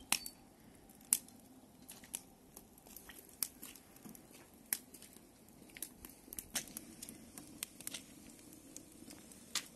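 Wood fire crackling in a small metal camp stove as it catches, with irregular sharp pops, the loudest about a second in.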